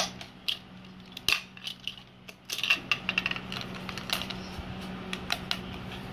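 Metal Beyblade-style spinning top spinning and wobbling on a ceramic tile floor. Its metal rim makes a string of irregular clicks and short ringing scrapes against the tiles, with a sharp click right at the start.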